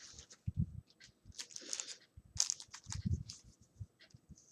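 Package contents being handled: scattered light rustles and clicks with a couple of soft knocks, about half a second and three seconds in.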